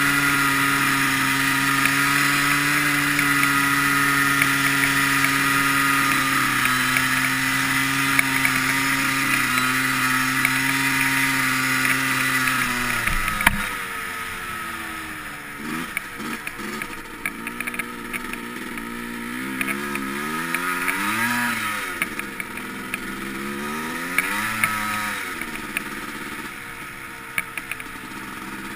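Yamaha Blaster quad's two-stroke single-cylinder engine running at a steady, held throttle. Nearly halfway through it drops off, then revs up and down a few times, with scattered small clicks.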